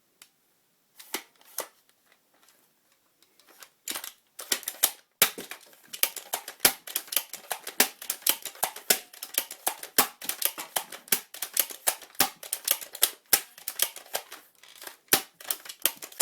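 Sharp plastic clicks and snaps of a Nerf blaster's mechanism being worked. There are a couple of clicks at first, then from about four seconds in a rapid, uneven run of several a second.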